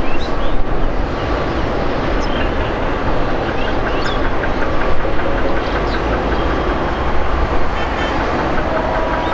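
Boeing 777-300ER's twin GE90 turbofans at taxi power, a steady rumble as the airliner taxis and turns.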